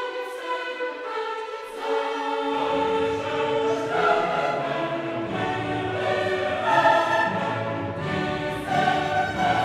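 Background music with sustained choral singing; a low bass part comes in about two and a half seconds in.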